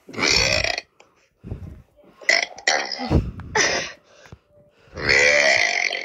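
A young boy burping loudly into a Nest doorbell camera's microphone: a string of separate burps, the longest near the end.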